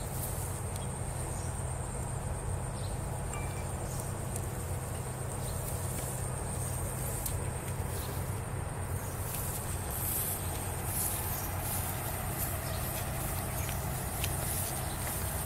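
Insects droning steadily at a high pitch over a low, steady rumble, with scattered light clicks and rustles.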